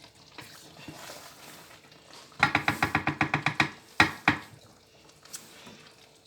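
A cooking spoon clinking against the pot while the soup is stirred: a quick run of about ten clinks, then two sharp knocks a moment later.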